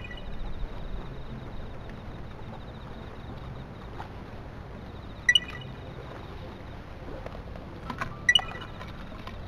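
Steady outdoor wash of sea and wind at a concrete seawall at night. A few sharp, ringing clinks cut through it: one right at the start, a double one about five seconds in, and a short cluster near the end.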